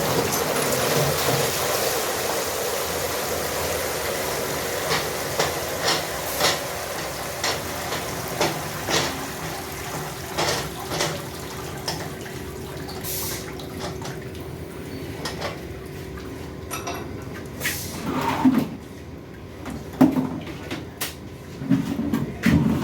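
Running water that gradually dies away, with scattered clinks, then a cluster of louder knocks and clatters near the end.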